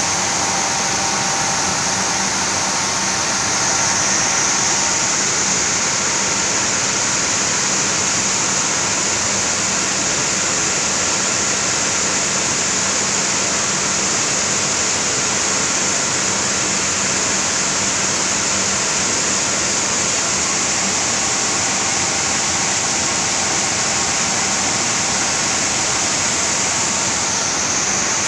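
Rice milling unit machinery running steadily, with milled rice streaming down a steel discharge chute: a loud, even hiss over a low hum.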